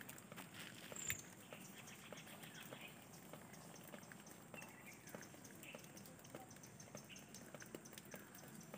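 Near silence: faint outdoor background with scattered small clicks, a sharper click about a second in, and a few faint short chirps.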